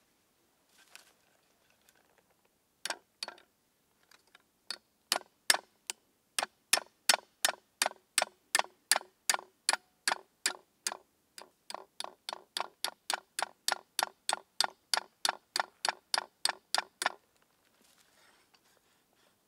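A nail being hammered through a small wooden block resting on a log stump. A few scattered taps lead into a steady run of sharp hammer blows, about three a second, which stops a little before the end.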